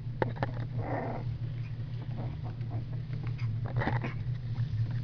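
Young blue heeler × terrier/poodle-mix puppies playing and scuffling, with small growls, scattered sharp clicks and short rustling bursts, over a steady low hum.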